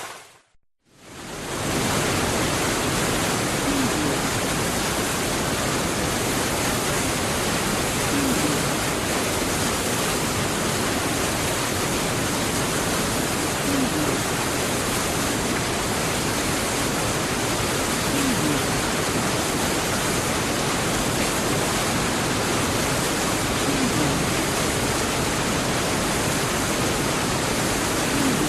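Steady, dense rainfall hiss, even and unbroken, starting after a brief silent gap about a second in.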